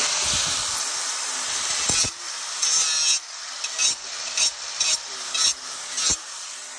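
Angle grinder chamfering the cut end of an orange plastic drain pipe, its disc grinding the plastic steadily for about two seconds and then in a series of short passes. The edge is being smoothed off so that the pipe slides into its connector without butting up.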